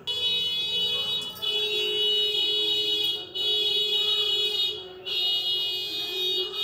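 A loud, steady, high-pitched whistle-like tone with many overtones, breaking off briefly twice, a little past a third of the way through and again about three quarters of the way through.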